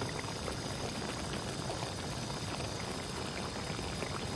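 Chicken pieces sizzling steadily in a large kadai (wok), with fine crackling.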